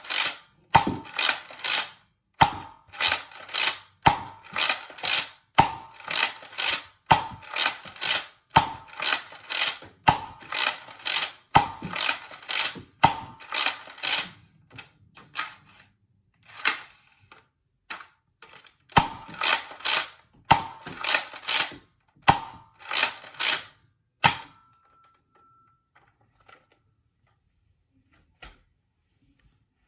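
Nerf Rival Artemis pump-action blaster being pumped and fired over and over, a sharp clack-and-shot cycle about every second and a half, with a pause of a couple of seconds midway. The firing stops about six seconds before the end as the magazine runs empty.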